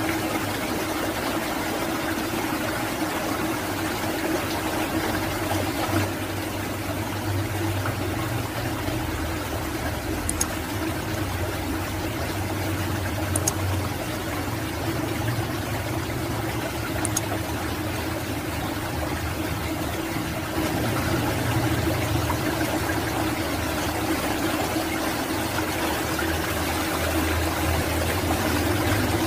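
Steady rush of flowing water with a low hum under it, and three faint short high ticks.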